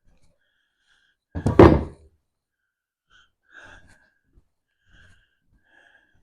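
A single loud thunk about a second and a half in, followed by a few faint clicks and taps.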